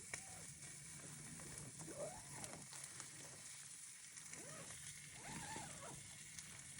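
Food frying in a pan over a camp fire or stove, a steady soft sizzle with faint crackles. A few faint rising-and-falling tones sound over it.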